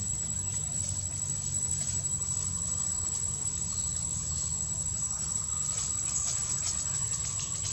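Steady low rumble with a continuous high-pitched whine above it, and a few faint ticks in the second half.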